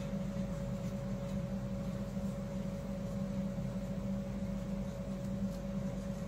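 Steady low hum with a fainter, higher steady tone above it.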